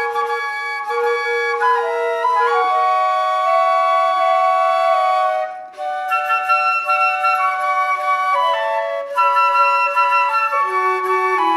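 Flute trio playing a slow melody in three-part harmony, held notes moving together from chord to chord, with a short breath pause in all parts about five and a half seconds in.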